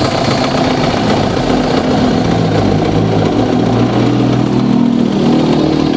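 An engine running steadily, with a low hum that grows stronger and rises slightly in pitch over the last few seconds.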